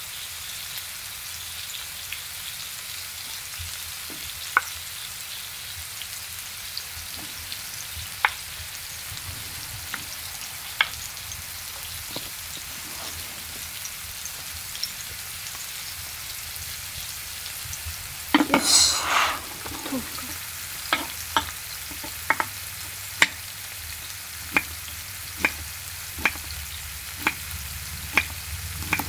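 Food frying and sizzling in a pan while being stirred, the utensil clicking sharply against the pan, about once a second in the last third. About eighteen seconds in comes a louder burst of sizzling lasting a couple of seconds.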